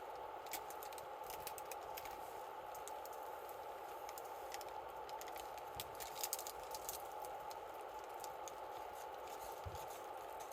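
Wood campfire crackling, with scattered sharp pops and ticks over a steady rushing hiss; the pops cluster about half a second in and again around six seconds.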